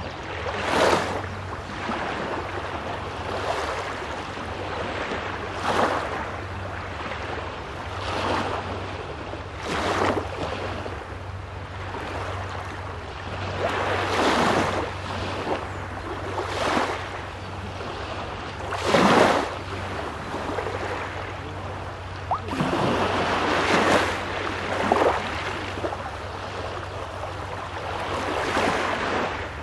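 Small Baltic Sea waves breaking and washing onto the shore, one surge after another every couple of seconds, over a steady low hum.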